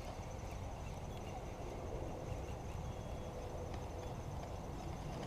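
Quiet outdoor ambience: a steady low rumble with a faint, high, finely pulsed insect trill running through it.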